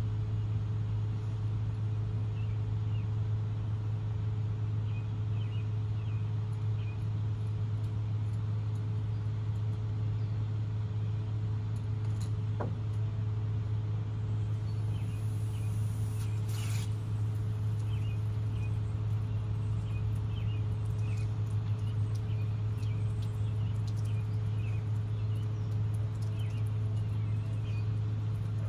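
A steady low machine hum, with faint bird chirps now and then and a brief noise a little past the middle.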